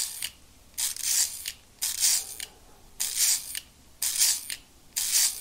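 Curta model 2 mechanical calculator's crank being turned again and again, about one turn a second. Each turn is a short rattle of clicks from its gearing. These are repeated subtractions during a division, run until the registers underflow to all nines.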